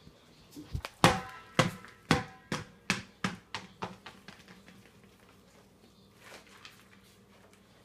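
A small hard object bouncing on a hard floor, the first knock loudest with a short ring, then about eight more bounces that come faster and fainter as it settles.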